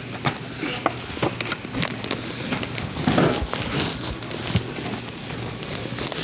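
Irregular rustling with scattered light clicks and knocks, a little louder about three seconds in.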